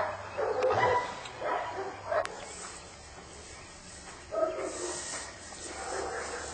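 Old East German (DDR) type German Shepherd barking in defence: a quick run of barks, a pause of about two seconds, then more barks.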